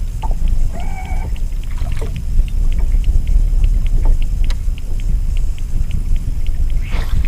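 Low rumble of wind and water around a fishing boat on a boat-mounted action camera's microphone, with a light regular ticking about four times a second while the angler reels against a hooked musky. A short sharp noise near the end.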